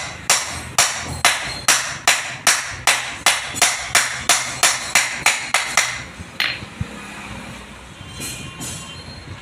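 A hand hammer beating on a drive-shaft universal joint resting on a steel anvil block: a steady run of sharp, ringing metal-on-metal blows, two to three a second. The blows stop about six seconds in, after one last strike.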